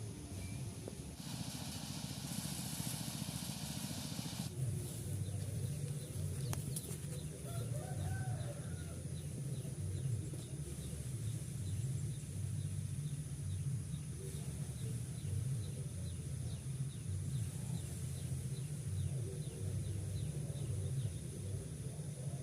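Outdoor rural ambience: a steady low rumble, a few seconds of hiss about a second in, and a short bird call about eight seconds in.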